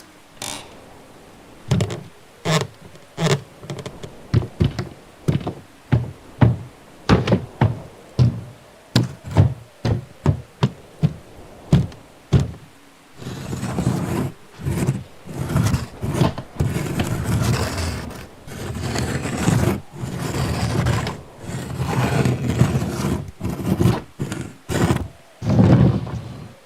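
Door sound effects: a run of sharp, separate door thunks and knocks, one or two a second, then about halfway through a denser stretch of rapid banging, rattling and scraping.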